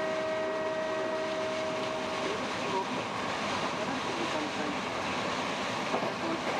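A train horn holds a steady chord that stops a little over two seconds in, over the steady rumble and rail noise of an electric train running at speed.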